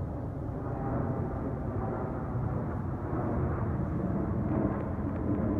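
Jet airliner approaching overhead at night, its engines a steady low rumble that grows slightly louder toward the end.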